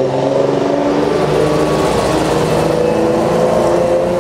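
Car engine running at high revs, its note climbing slowly and steadily.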